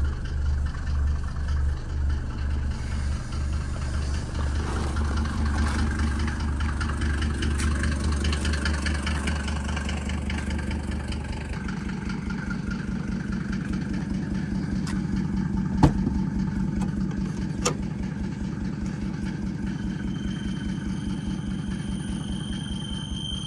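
1992 Mercedes-Benz 300D turbo diesel engine idling steadily with an even, regular clatter. Its low tone shifts about halfway through, and there are a couple of sharp clicks later on.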